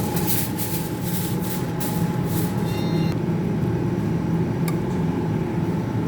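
Steady mechanical hum with a constant whine, and a few light clicks.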